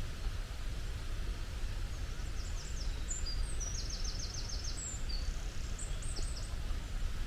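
A small songbird sings high, quick notes over a steady low rumble and hiss, with a fast trill of about seven notes in the middle.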